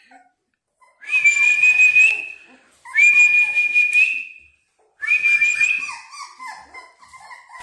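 American Bully XL puppies crying in their crate: three long, high whistle-like whines of about a second and a half each, with shorter whimpers underneath.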